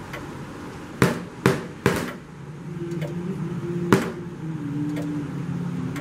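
Knife point stabbed down hard into a wooden tabletop: four sharp thuds, three in quick succession about a second in and one more near four seconds, over a low, sustained background score with slowly shifting notes.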